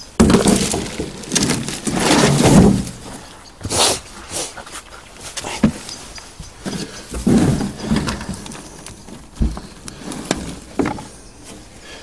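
Hands digging through compost in a potato pot: irregular rustling and scraping of soil, with a few dull thuds.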